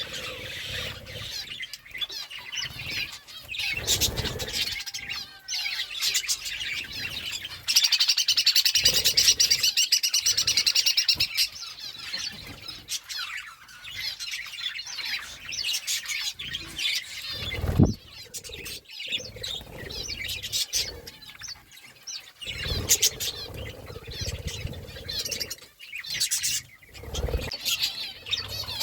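Pet parakeets chirping and chattering, with a loud, dense run of rapid chatter from about eight to eleven seconds in. Short clicks and knocks are scattered through it, the sharpest about eighteen seconds in.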